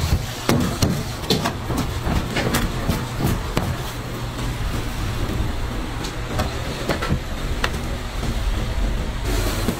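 Plastic bench scraper chopping through bread dough and knocking on a stainless-steel worktable, sharp knocks at irregular intervals, over a steady low hum.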